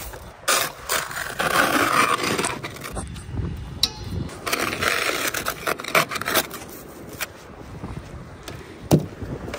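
Ice scraper scraping frost and ice off a car windshield in irregular, repeated strokes. A sharp knock near the end is the loudest moment.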